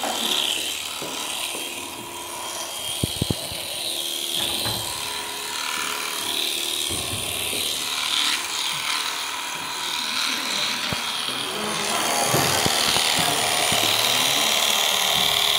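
Electric shearing handpiece running steadily, its comb and cutter buzzing and rasping as they clip through alpaca fleece. A few sharp clicks come about three seconds in, and the cutting gets louder about twelve seconds in.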